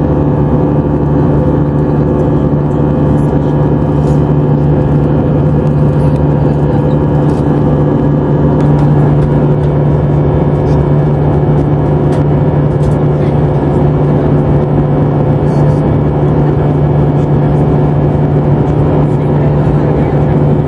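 Steady in-flight cabin noise of an Airbus A320-family airliner: the drone of jet engines and rushing air, with a constant low hum and a few fixed higher tones.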